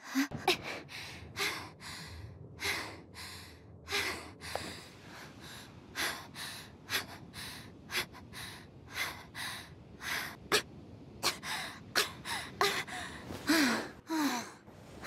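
A young woman's anime voice acting: a rapid string of short gasps and breathy exclamations edited back to back, a few each second, with some briefly voiced squeaks near the end.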